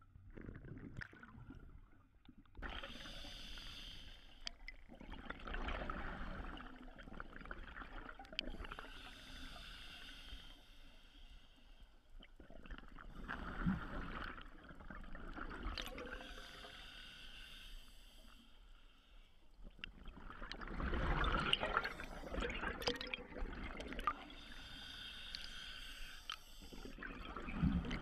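Scuba diver breathing through a regulator underwater: hissing inhalations and bubbling exhalations that swell and fade every several seconds.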